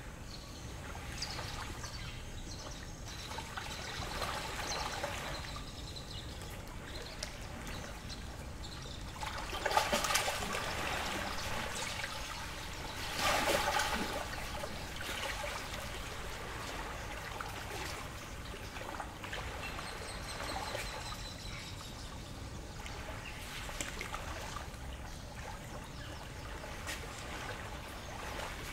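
Small lake waves lapping and trickling against the shore, with two louder splashes about ten and thirteen seconds in.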